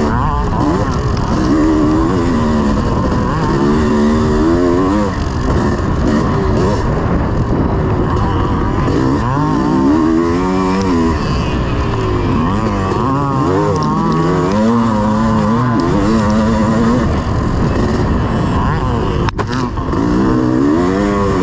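1986 Honda CR500's single-cylinder two-stroke engine being ridden hard on a motocross track, its pitch climbing and dropping over and over as the throttle is opened and closed through the course.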